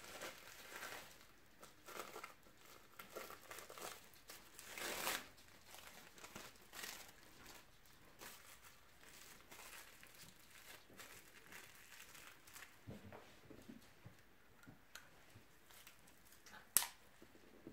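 Faint, irregular crinkling and rustling of grooming wrap paper being folded around sections of a Yorkshire terrier's coat, with one sharp click near the end.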